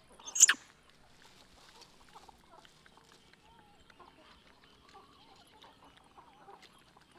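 A short, sharp, high-pitched squeak about half a second in, the loudest sound, followed by faint clucking of chickens.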